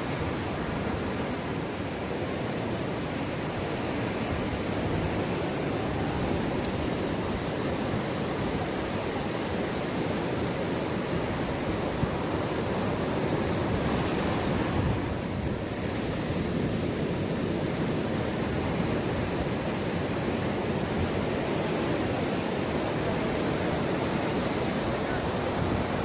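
Ocean waves breaking and washing up the beach in a steady surf noise, with a little wind on the microphone.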